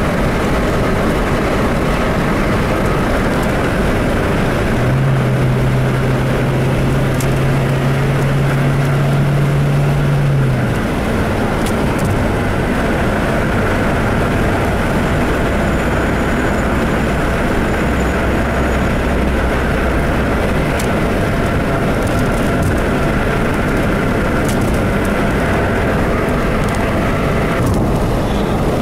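Road and engine noise inside a car's cabin at highway speed, a steady rumble and hiss. About five seconds in, a low, steady two-note tone comes in and holds for about five seconds, then stops.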